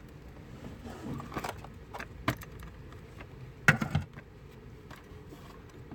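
A few scattered knocks and metallic clatters of handling, the loudest a short clatter a little under four seconds in.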